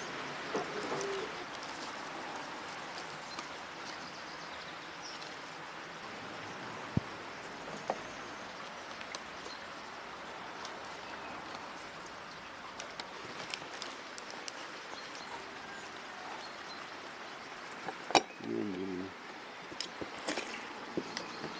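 Outdoor background with birds calling, broken by a few sharp knocks and clicks from a wooden plate and a metal lever lemon squeezer being handled. The loudest clicks come near the end, as the squeezer is worked.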